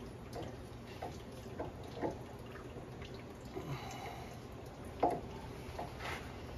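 Scattered light clicks and taps of a brass air-line fitting being turned and threaded by hand onto a fitting stack, the sharpest tap about five seconds in, over a steady low hum.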